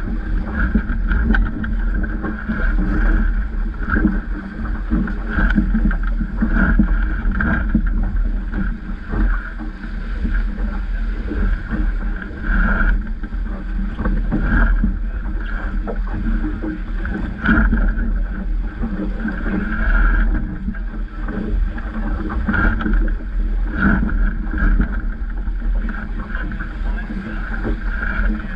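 Water rushing and splashing along the hull of a Vaucluse Junior sailing dinghy under way in gusty wind, with a steady deep rumble of wind on the microphone.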